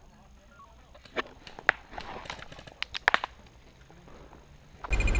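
A few irregular crunches and clicks, like footsteps on dry ground. Just before the end a loud, steady rushing noise starts abruptly.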